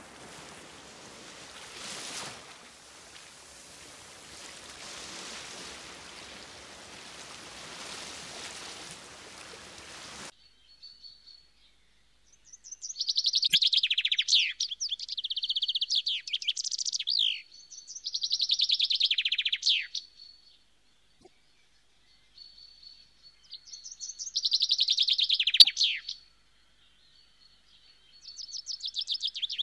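Steady rush of sea water for about ten seconds, cutting off abruptly. Then a songbird sings four phrases of rapid trilled notes, each about two seconds long, with a thin, steady high tone between the phrases.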